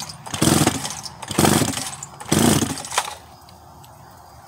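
Recoil starter of a Craftsman two-stroke chainsaw pulled hard about once a second, cranking the engine over without firing, ignition switched off, as a compression test with a gauge in the spark plug hole. Three pulls, the last ending about three seconds in.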